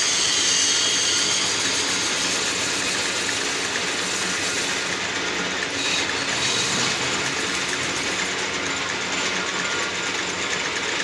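Metal lathe running steadily with a fast, even mechanical clatter. A high hiss in the first second or so fades out.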